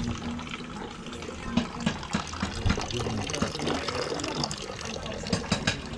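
Water from a thin pipe running steadily into a plastic bucket, filling it.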